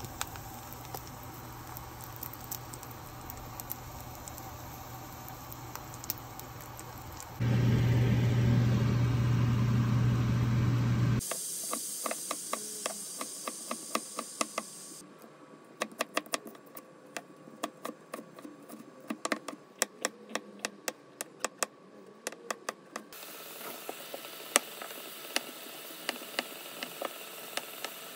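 Egg-coated zucchini slices sizzling in a frying pan over a steady low hum, the sizzle getting louder for a few seconds about seven seconds in. After about eleven seconds a knife chops onion and slices zucchini on a wooden cutting board in quick, sharp taps.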